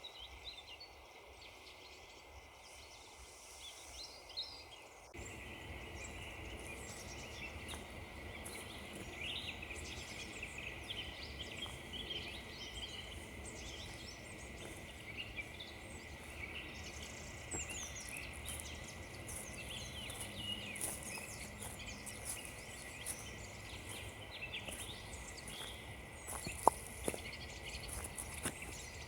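Small birds chirping and twittering, many short high calls overlapping, over a soft background hiss that grows louder about five seconds in. A single sharp click near the end.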